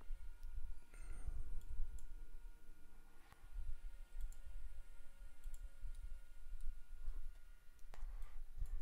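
Scattered clicks of a computer mouse and keyboard over a steady low rumble.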